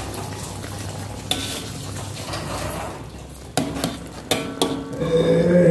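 Metal spoon stirring thick coconut-milk sauce and chicken in an aluminium wok, clanking sharply against the pan about a second in and several times from three and a half seconds on.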